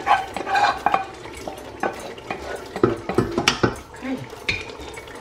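A wooden spoon stirring tomato purée into frying palm oil, onion and pepper in a stainless steel pot, with irregular knocks and scrapes against the pot over a sizzle.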